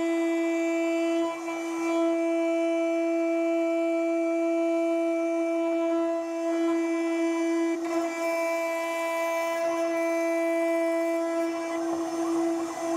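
CNC router spindle with an end mill cutting a slot in a plate: a steady, high-pitched singing whine with many overtones, briefly dipping a few times as the cutter moves along the cut.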